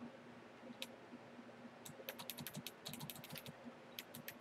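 Faint typing on a computer keyboard: a single key click, then a quick run of clicks from about two seconds in, and a few more near the end.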